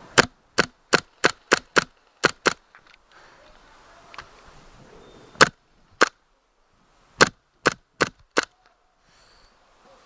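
Gas blowback airsoft gun firing about fourteen sharp single shots in quick strings: eight in the first two and a half seconds, two more a few seconds later, then four near the end.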